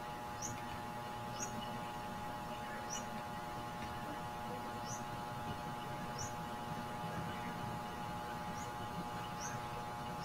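Steady electrical hum, with short, high chirps every second or so.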